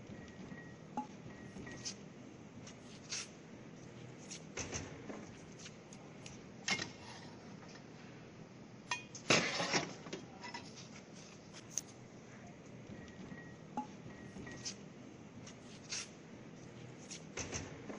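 Scattered light clinks and knocks of small hard objects over a steady low background hum, with a louder rattle about nine seconds in.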